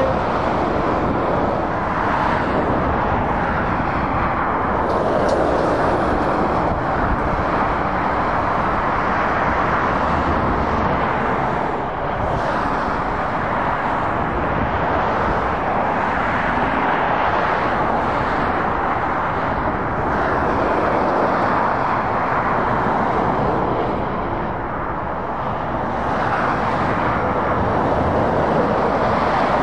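Road traffic on a dual carriageway: articulated lorries and cars driving past with tyre and engine noise that swells and eases as each goes by. There is a brief lull about three-quarters of the way through.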